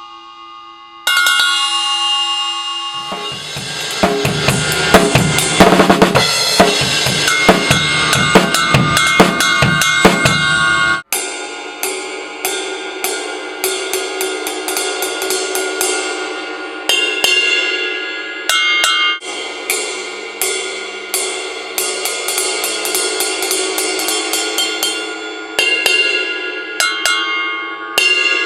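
Paiste 2002 10-inch Mega Bell, a bell cymbal, struck and ringing with a bright, pitched tone, then played together with a drum kit from about three seconds in. After an abrupt cut near the middle, a steady run of bell and cymbal strokes continues without the low drums, with louder accented bell hits every few seconds.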